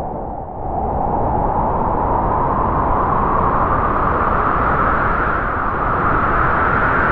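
Strong wind sound effect: a steady rush with a whistling tone that slowly rises in pitch, swelling about a second in.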